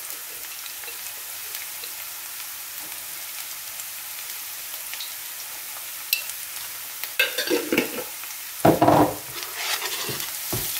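Chopped onion sizzling steadily in oil in a frying pan as it turns translucent. From about seven seconds in, a wooden spatula stirs and scrapes the onion around the pan, with the loudest strokes shortly before the end.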